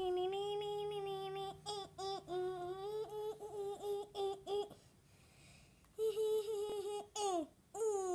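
A child humming a wordless tune in long held notes at a fairly steady pitch, with a break of about a second midway.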